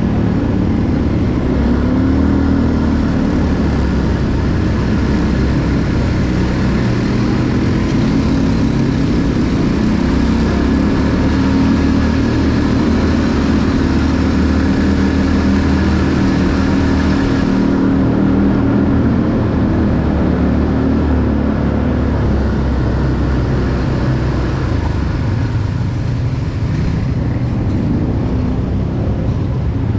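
Quad bike (ATV) engine running as it is ridden, its note rising and falling with the throttle.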